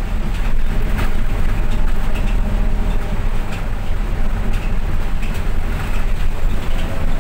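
Cabin noise inside a moving bus: a steady low engine drone and road rumble, with a few sharp clicks and knocks from the cabin.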